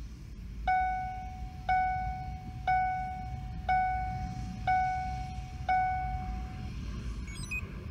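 A car's electronic warning chime sounds six times, about once a second, each tone ringing out before the next. It comes while the Ford Focus's modules are being reprogrammed and trouble codes cleared with the key on and the engine off. A brief faint run of falling high beeps follows near the end.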